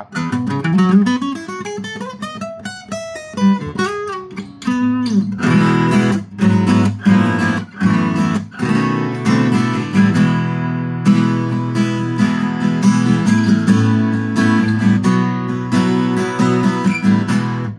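Yamaha FG-251 steel-string acoustic guitar with new 11-gauge strings, played unplugged: a quick run of single notes climbing and then falling back, followed from about five seconds in by strummed chords.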